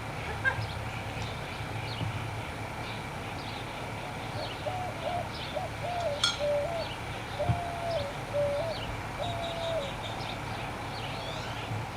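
Birds calling: a string of short cooing or whistled notes in the middle, over faint high chirps throughout, with a single sharp click partway through.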